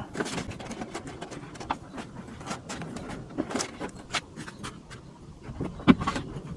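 Irregular clicks and rustling of hands working wiring and plastic trim inside a car's dash, with a sharper knock near the end.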